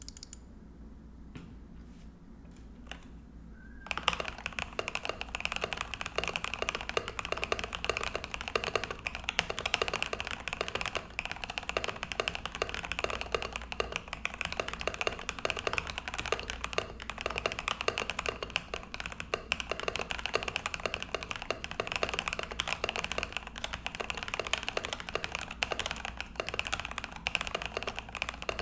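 Mechanical keyboard being typed on: a RAMA U80-A with brass plate, PBT keycaps and lubed, filmed Epsilon switches, without the silicone dampener. A few separate key presses, then fast continuous typing from about four seconds in.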